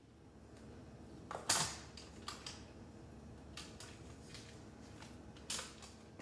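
Sharp metallic clicks and light clanks from a springform cake pan handled on a metal sheet pan as its side latch is worked open, the loudest about one and a half seconds in and another strong one near the end.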